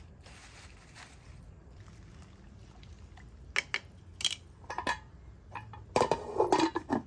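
Cookware knocking: a wooden spoon clinking in a metal pot of grape leaves soaking in water, then a louder cluster of clatters as an enamel lid meets the pot about six seconds in.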